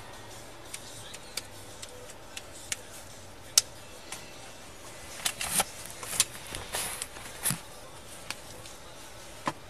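Scattered clicks and taps, then a cluster of rustling and knocks about five to seven seconds in, as a person moves about inside a car's cabin. A steady cabin hum sits underneath, heard through a chest-worn body camera.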